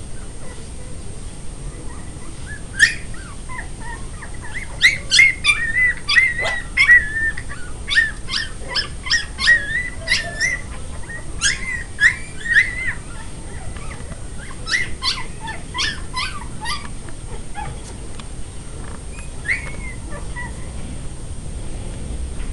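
Young puppies yelping and whining: a rapid series of short, high-pitched, wavering cries for about fourteen seconds, then a single cry a few seconds before the end.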